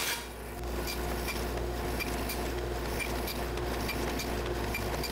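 Bandsaw running and cutting a notch in a small plywood divider fed against a stop, a steady hum with a light tick about three times a second.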